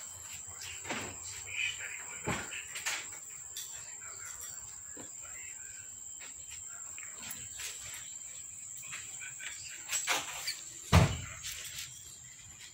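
Kittens scrambling in and against a clear plastic storage box: scattered knocks and scratches of small paws and claws on the plastic, with one louder thump near the end. A steady high-pitched whine runs underneath.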